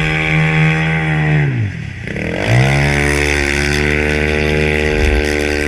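Engine of a small home-built mini speedboat running at speed across the water, its revs falling sharply about a second and a half in and climbing straight back up, then holding steady.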